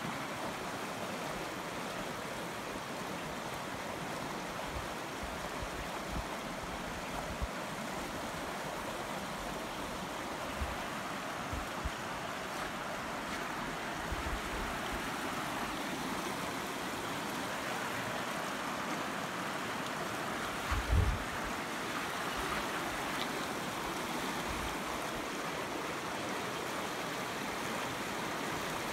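Creek in high flow, rushing and pouring over a small check dam of wooden boards and corrugated metal: a steady rush of water. A few short low thumps on the microphone, the loudest about two-thirds of the way through.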